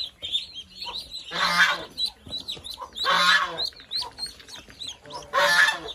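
Ducklings peeping nonstop in rapid high chirps. An adult bird gives three loud, harsh honking calls, about a second and a half apart.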